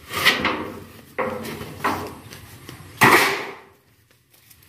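Corrugated iron roofing sheets being handled and moved, clattering and scraping four times, the loudest about three seconds in.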